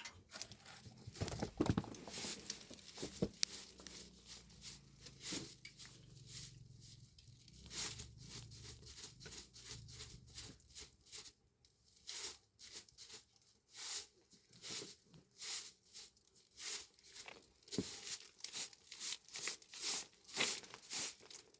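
A string of irregular crunching, crackling noises: many short, sharp clicks and crackles in quick succession, with a faint low hum under the first half.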